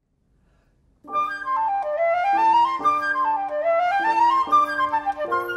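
Flute and piano duet starting about a second in: quick rising and falling scale runs over held lower notes that change every half second or so.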